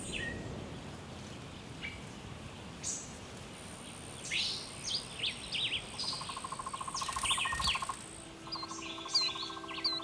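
Natural ambience of assorted birds chirping and calling, with a thin, steady, high insect-like whine through the middle and a fast trill from about six to eight seconds in. A few low steady tones come in near the end.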